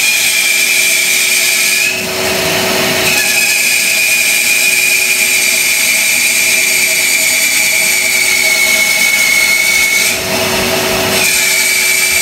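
Bandsaw cutting a circle in a 1.5-inch poplar block as the blank is turned on a pivot jig: a steady high whine with a hiss. The whine gives way twice, about two and ten seconds in, to a rougher noise for about a second.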